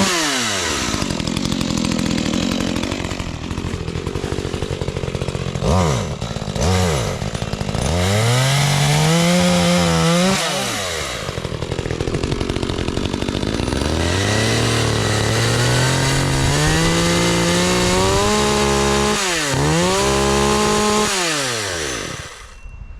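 Chainsaw engine test-run after its chain was refitted and tensioned. It is revved up and down several times with idling between, then shuts off near the end. The saw now works properly.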